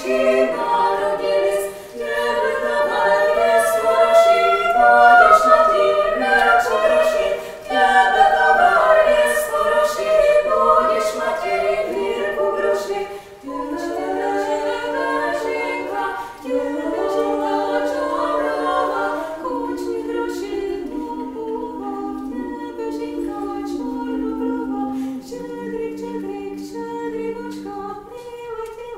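Choir singing a cappella in several voice parts. About halfway through, the singing turns softer and lower.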